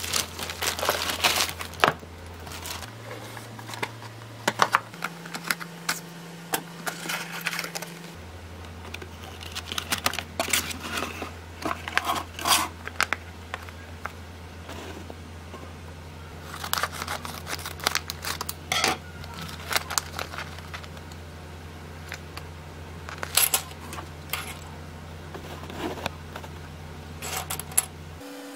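Plastic courier mailer and a clear plastic bag being torn open and crinkled by hand, with many sharp crackles, then thin circuit boards clicking and clattering against each other on a wooden desk. A low steady hum runs underneath.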